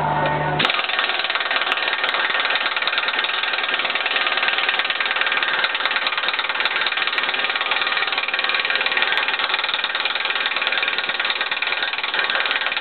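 Impact wrench hammering continuously, running the press tool that draws a Hendrickson tri-functional bushing into a leaf-spring eye. It starts about half a second in as a rapid, rattling run of blows.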